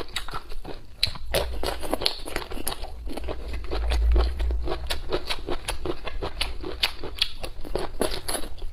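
Close-up eating sounds: chewing and lip smacking in quick, irregular clicks, with a low rumble through the middle.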